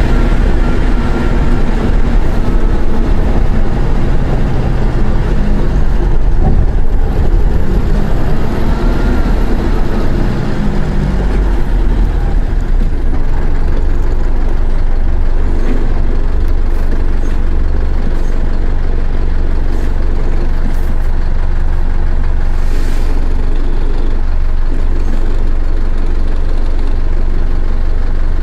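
Mercedes-Benz OF-1418 bus's six-cylinder diesel engine running under way, its pitch rising and falling with the revs. About twelve seconds in it settles to a steady low rumble. A brief hiss comes about two-thirds of the way through.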